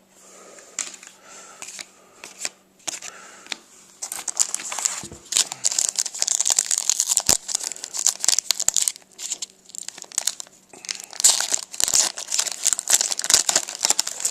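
Foil trading-card pack wrapper being crinkled and torn open, in irregular crackly bursts that grow louder and busier about four seconds in.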